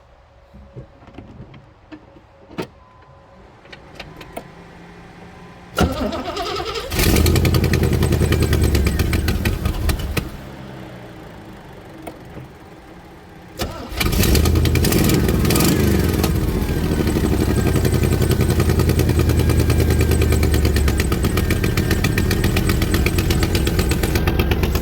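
A few light clicks, then a cold car engine is cranked on the starter and catches, runs for about three seconds and drops away. It is cranked again and catches, then runs steadily with a heavy exhaust note. The engine has exhaust leaks, which the owner puts down to a blown rear header gasket.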